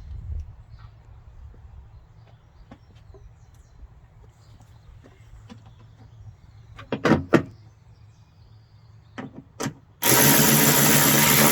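Scattered light clicks and taps of tools on metal, then near the end a power drill runs steadily for nearly three seconds, driving in a 10 mm bolt that holds a tailgate latch motor.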